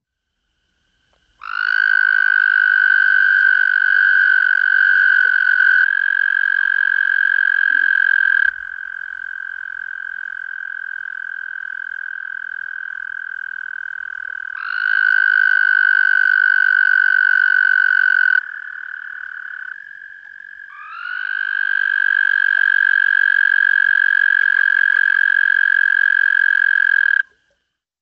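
Frogs trilling: several long, steady, even-pitched trills from more than one caller, each lasting several seconds and overlapping, with a softer trill carrying on between the louder ones.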